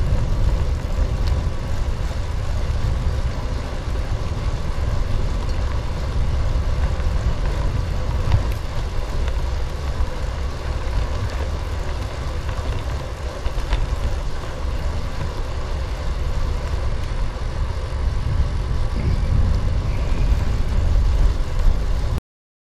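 Wind buffeting the microphone of a handlebar-mounted camera on a moving bicycle, a loud steady low rumble mixed with tyre noise on asphalt and a faint steady hum. It cuts off suddenly near the end.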